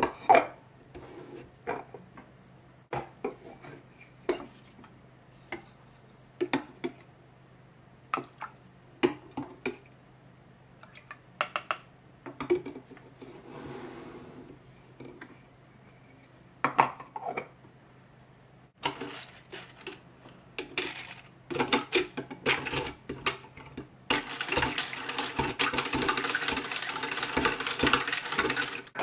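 Plastic toy cookware clacking and tapping: a plastic ladle, lid and pots knocked together and set down, with a little water in them. About 24 seconds in, a plastic toy hand beater is worked in a bowl of water, a continuous rattling whir that stops near the end.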